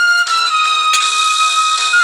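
Background music: sustained high held notes over a pulsing accompaniment, with a faint click about a second in.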